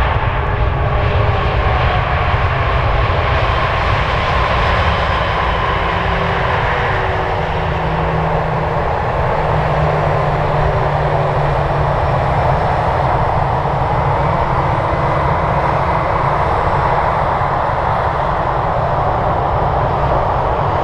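Airbus A320-214's CFM56 turbofan engines running at low taxi thrust as the jet rolls past: a steady jet-engine whine and rush, with one tone sliding lower in the first couple of seconds.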